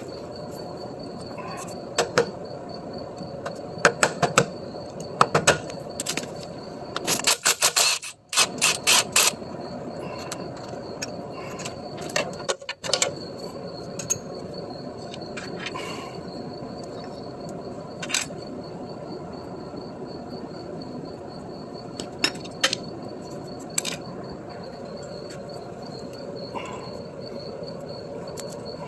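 Scattered metal clanks and clicks of hand tools as the output yoke is pried and worked out of a 1965 Corvair transaxle, with a quick run of clicking about seven to nine seconds in. A steady high, thin chirping runs underneath throughout.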